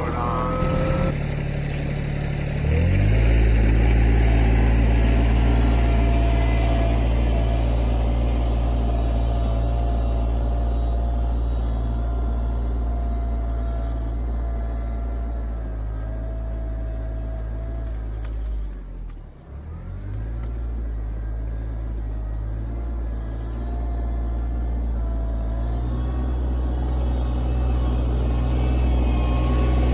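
RK24 compact tractor engine running steadily. It comes up in speed about two and a half seconds in, and drops sharply for a moment about two-thirds through before picking back up.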